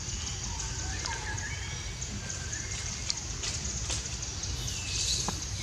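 Forest ambience: a constant high-pitched hiss, with a few faint short chirps and soft clicks.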